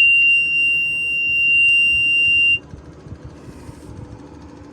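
Cat CB24B roller's warning buzzer sounding one steady high-pitched tone for about two and a half seconds, then cutting off suddenly, typical of the key being switched on just before the engine is cranked.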